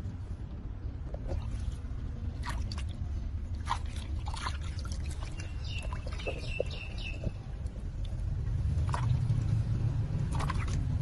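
Water splashing and sloshing in a plastic basin as a kitten is dipped and rubbed in it by hand, over a steady low rumble. A quick run of short high chirps comes about six seconds in.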